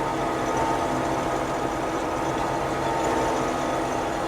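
Combine harvester running steadily while cutting wheat: its engine and threshing machinery make an even, unbroken drone.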